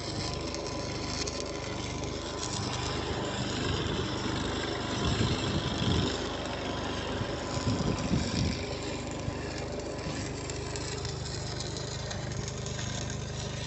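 An engine running steadily, with a noisy hiss over it and a few low thumps about halfway through.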